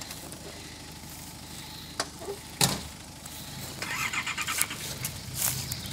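Off-road vehicle engines running at low revs during a tow-strap recovery out of mud, getting louder in the second half. Two sharp knocks about two and two and a half seconds in, and a brief fast rattle around four seconds in.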